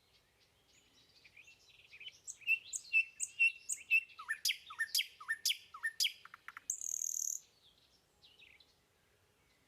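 Birds chirping and singing: a quick run of sharp high chirps and several short whistles sliding downward, then a brief hissing note about seven seconds in.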